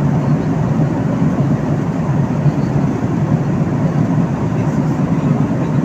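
Steady cabin noise of a jet airliner in flight: an even, unbroken rushing hum with a strong low drone.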